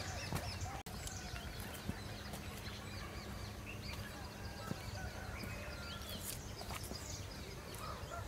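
Scattered bird chirps and calls over steady outdoor background noise with a faint low hum; the sound drops out for an instant about a second in.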